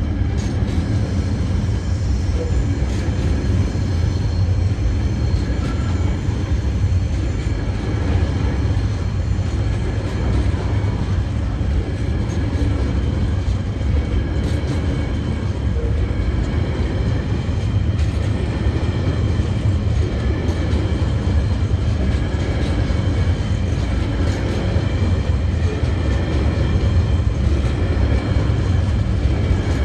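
Container flat wagons of a long freight train rolling past close by: a steady, loud rumble of steel wheels on the rails, with occasional clicks.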